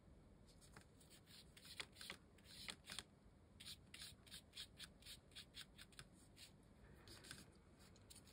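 Faint, scratchy strokes of a paintbrush working wet paint across textured watercolour paper, a run of short brushes coming about three a second in the middle stretch.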